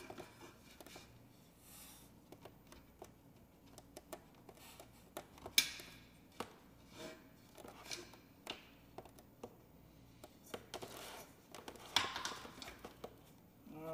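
Small scattered clicks, taps and scrapes of a ceiling fan blade's mounting screw and washer being worked into the fan motor's blade mount, with one sharper click about five seconds in.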